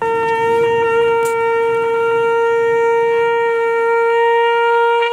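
A conch shell (shankha) blown in one long, steady note of about five seconds that starts and stops abruptly; the conch is sounded as part of Hindu funeral rites.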